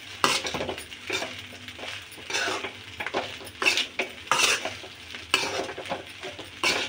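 Steel spoon stirring and tossing cooked rice in a metal kadai: repeated scraping strokes of metal on the pan, uneven, about one or two a second.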